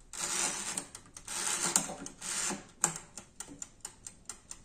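An air fryer's mechanical timer ticking, about five ticks a second, with three spells of scratchy noise in the first two and a half seconds as its dial is turned by hand. The fryer itself has not come on, which the owner puts down to a poor wall socket.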